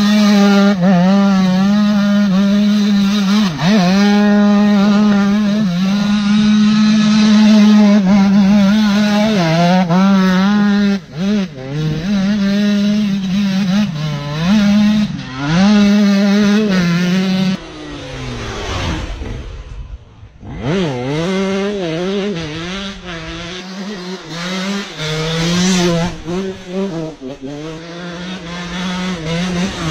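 KTM motocross bike engine revving hard under a heavy throttle hand, its pitch rising and falling again and again. About two-thirds of the way through, the revs fall away to a low drone, then pick back up.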